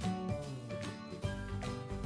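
Background instrumental music with a regular beat and a bass line.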